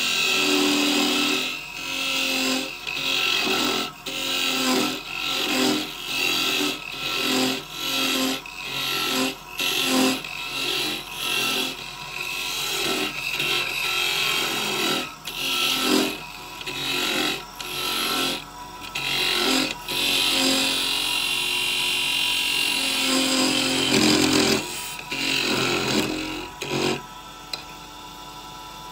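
Wood lathe running while a hand-held turning tool cuts a small spinning wooden workpiece in a series of short scraping passes, somewhat under two a second. Near the end the cutting stops and mostly the lathe's running is left.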